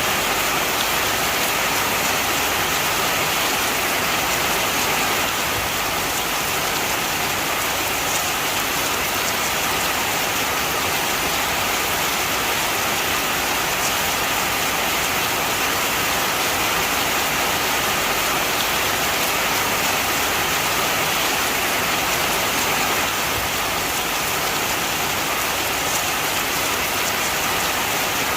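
Heavy rain falling steadily, an even hiss with no breaks or other sounds.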